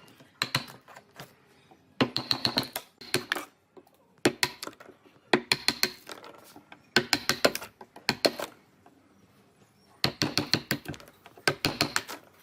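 Bursts of rapid tapping strikes, several in quick succession, each burst about a second long with short pauses between, about eight bursts in all.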